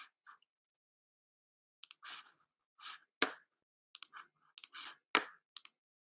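About a dozen short, sharp clicks and taps in irregular clusters, starting about two seconds in, two of them with a low thump.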